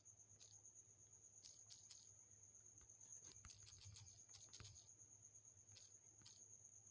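Near silence: a faint, steady high-pitched tone with a low hum under it and scattered faint clicks.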